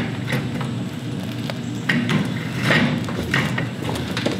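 Irregular metal clanks and knocks of hand tools working on the Subaru Robin engine as it is bolted into the go-kart frame, over a steady low hum.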